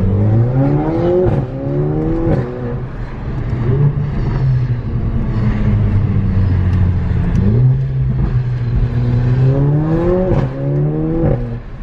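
Mercedes-AMG A45's turbocharged four-cylinder engine with an aftermarket exhaust, accelerating hard. The engine note climbs through two quick upshifts near the start, holds steady for a few seconds, then climbs through two more gears near the end.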